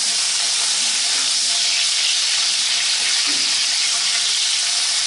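Potato wedges sizzling steadily as they fry in hot mustard oil in a kadai.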